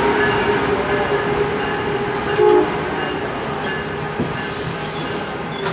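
Amtrak passenger coaches rolling past along the platform, their wheels and brakes giving steady squealing tones, with a brief louder squeal about two and a half seconds in. A short hiss of air comes a little before the end.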